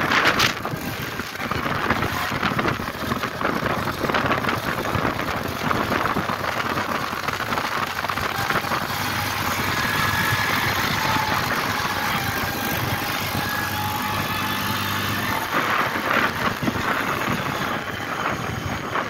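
ATV (quad bike) engine running steadily, with a faint whine over a continuous rushing noise.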